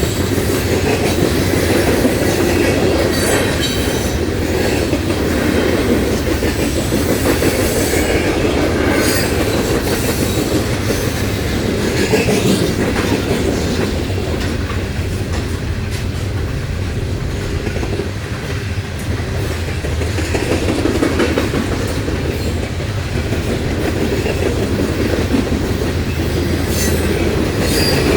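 Loaded coal hoppers and gondolas rolling past, their steel wheels clacking steadily over the rail joints, with now and then a thin squeal of wheel flanges.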